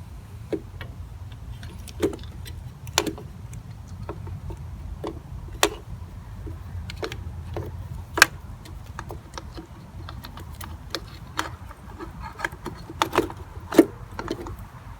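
Irregular metallic clicks and clinks of hand tools and parts being handled while a motorcycle carburettor is fitted, the sharpest knocks about eight and fourteen seconds in, over a steady low hum.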